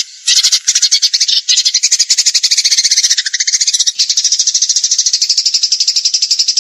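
A songbird's very fast, rattling trill of high notes run together, held almost continuously with brief breaks near the start and about one and a half seconds in. It is a masteran recording, the kind of song played to train caged songbirds.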